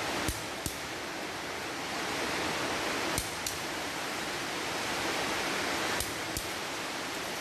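Click-type torque wrench clicking as it reaches the set 100 N·m on the wheel bolts: three double clicks about three seconds apart, over a steady hiss.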